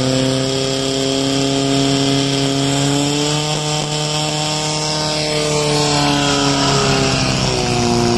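Portable fire pump's engine running flat out at a steady high pitch, pushing water through the hoses to the targets, with a slight dip in pitch near the end.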